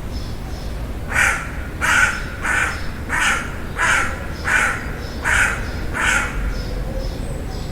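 A crow cawing: a steady series of about eight caws, roughly one every 0.7 seconds, starting about a second in.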